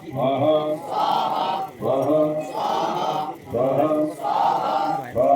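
Vedic mantras for a yajna fire ritual chanted in Sanskrit, in even, rhythmic phrases about a second long with brief breaks between them.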